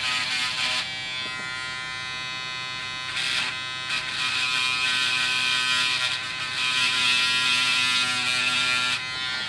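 Mini linear electric sander pen running at full speed with a steady electric buzz, its reciprocating tip sanding through a plastic model-kit nub. The scratchy sanding noise swells over the buzz a few times, loudest from about four seconds in to near the end.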